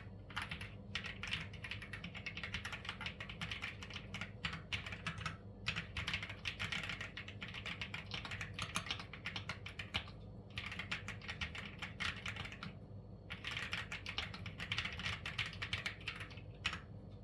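Typing on a Keychron Q1 Max mechanical keyboard with tactile banana switches: fast, crisp runs of keystrokes broken by a few short pauses.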